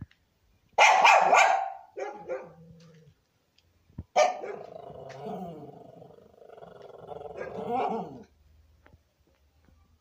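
Small white dog barking up at someone: a loud bark about a second in, a couple of shorter barks just after two seconds, then a drawn-out, wavering bark-whine lasting about four seconds.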